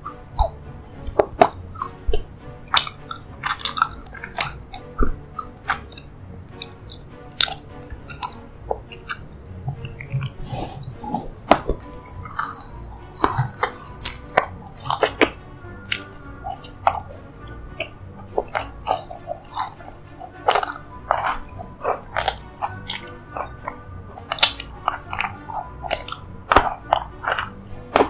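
Close-miked chewing and wet mouth sounds of someone eating creamy dessert, with frequent small crunches and clicks at irregular intervals, over quiet background music.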